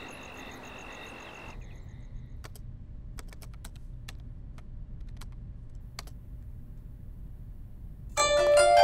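Scattered clicks of laptop keys being typed, irregular and a fraction of a second apart, over a low room hum. Before the typing, a high, evenly pulsing chirp sounds for about a second and a half. Plucked-string music comes in near the end.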